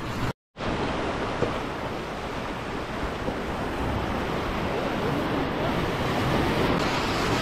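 Sea surf washing and breaking against a rock ledge, a steady rushing of water. There is a brief gap of silence about half a second in.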